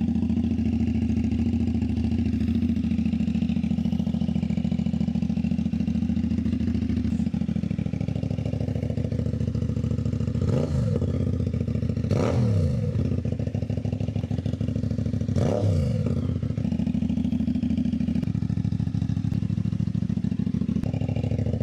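CFMOTO 450 SRS parallel-twin with a 270-degree (crossplane) crank and an Austin Racing shorty exhaust, idling steadily on a cold start. It is revved three times, each blip rising and falling quickly: about ten and a half, twelve and fifteen and a half seconds in.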